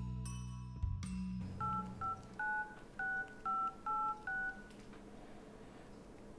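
Mobile phone keypad beeping as a number is dialed: seven short touch-tone beeps, each two notes at once, over about three seconds. A few seconds of soft music end just before the first beep.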